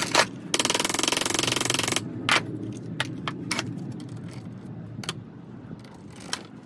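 A burst of harsh, steady noise lasting about a second and a half near the start, then a string of separate sharp clinks and knocks of steel vise parts and tools being handled.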